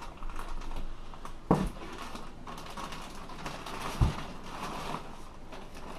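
Plastic packaging rustling and crinkling as parts are handled in a cardboard box, with two knocks, one about a second and a half in and one about four seconds in.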